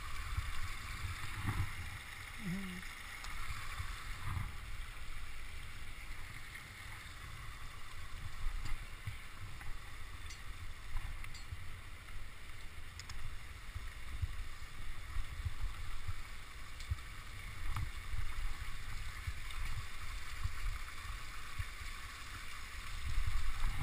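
Steady rush of a waterfall, with uneven low rumbling buffets on the body-worn camera's microphone and a few faint clicks.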